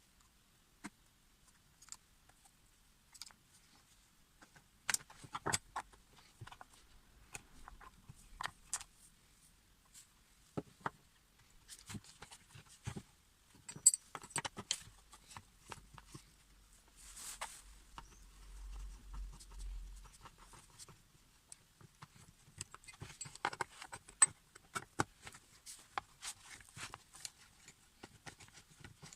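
Scattered light metal clicks and clinks of small parts and tools being handled during a power cutter repair, with a brief hiss about two-thirds of the way in.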